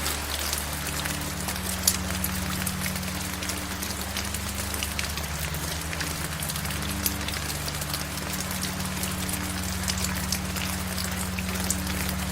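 Steady rain falling, with many individual drops heard as sharp ticks striking a surface close by. A low steady drone runs underneath.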